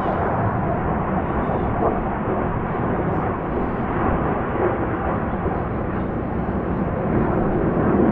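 Distant jet noise from KAI T-50 jet trainers flying an aerobatic display: a steady rush of noise without pauses or sharp events.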